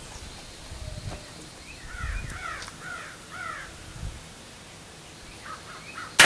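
A bird calls in a quick run of about five short cawing calls. Near the end comes one sharp, loud crack: a shot from a .177 Benjamin Marauder air rifle firing a pellet into ballistic gelatin.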